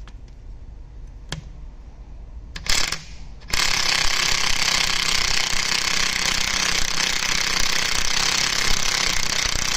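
Air-powered wrench running continuously, driving home a mounting-bracket bolt on a truck starter motor through a long socket extension. A few light clicks come first, and the tool starts about three and a half seconds in.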